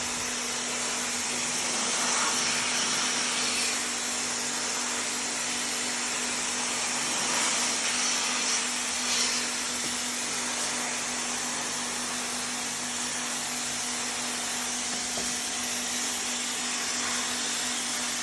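Steady motor-driven hiss with a constant low hum underneath, running evenly without a break.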